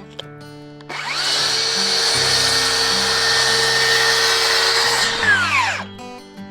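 A power tool's motor spins up about a second in, runs steadily at full speed with a whine for about four seconds, then winds down, over acoustic guitar music.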